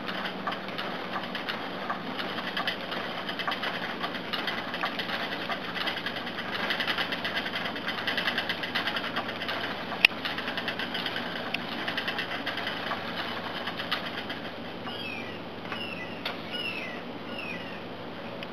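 Antique Tyrolean spinning wheel being treadled while spinning yarn: a steady rapid clatter and whir from the turning wheel, treadle and flyer. A single sharp click comes about ten seconds in.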